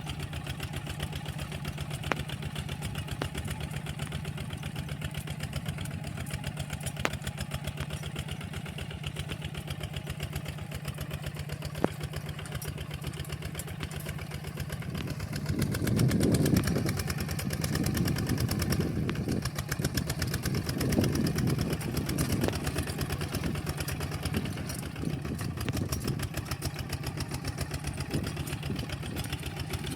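Walking tractor engine running steadily, growing louder for several seconds from about halfway, with a few sharp clicks in the first half.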